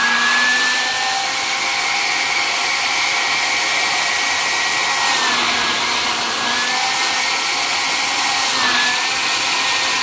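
Pingo HR-1709 Qmini travel hair dryer with a DC motor, running on its high setting with its air intake covered by hand: a steady rush of air under a high motor whine that dips slightly in pitch about halfway through. Blocking the intake lets the element overheat toward the dryer's automatic thermal cut-out.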